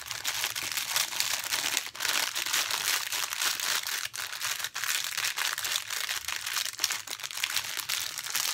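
Small plastic bags of diamond painting drills crinkling and rustling as they are handled, with many small clicks.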